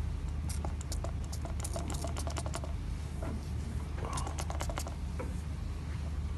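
A quick run of light clicks and rustles from gloved hands handling small items, thickest in the first half and again briefly about four seconds in, over a steady low hum.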